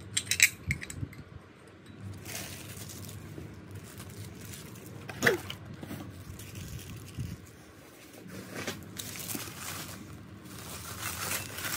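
Plastic bubble wrap crinkling and rustling as hands unwrap hand-painted ceramic dishes. There are a few sharp clinks near the start and another knock about five seconds in.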